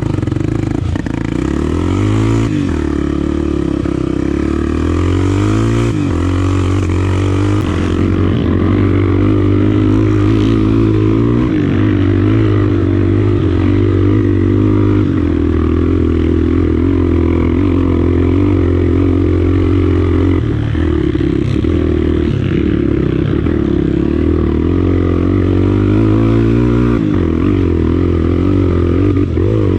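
Honda Tornado trail bike's single-cylinder four-stroke engine, enlarged to 300cc, running under load on a trail ride, its revs rising and falling repeatedly with throttle and gear changes.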